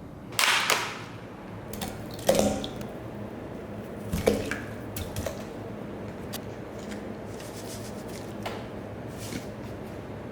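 Handling noises: three louder knocks or clatters, roughly two seconds apart, then a few lighter clicks, over a steady low hum.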